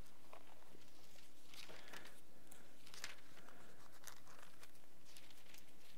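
Faint rustling and crinkling of thin Bible pages being turned by hand, a scatter of soft rustles over a steady low hum from the room's sound system.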